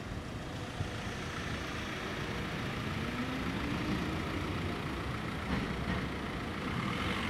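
City street traffic: an electric tram running past alongside queued cars idling, a steady low rumble that grows slightly louder, with a faint rising whine about halfway through.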